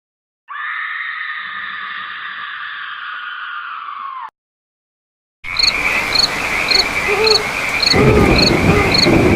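Two separate sound effects: first a steady, buzzy held tone lasting about four seconds that dips in pitch as it cuts off. After a second's gap comes a night-ambience effect of crickets chirping two or three times a second with frogs croaking underneath, getting louder toward the end.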